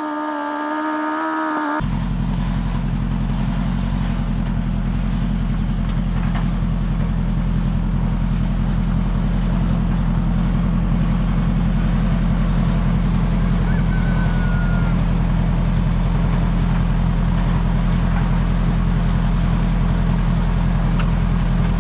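Ford 641 tractor engine running steadily under way, a loud low drone with a fine rhythmic flutter. It starts about two seconds in, after a short stretch of music that cuts off abruptly.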